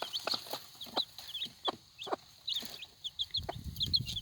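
A brood of four- to five-day-old chicks peeping continuously, many short high peeps a second, with short low clucks from the mother hen among them.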